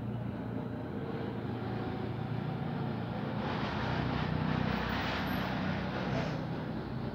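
Diesel bin lorry engines running with a steady low rumble, and a louder rushing noise that builds about three and a half seconds in and fades after about six seconds.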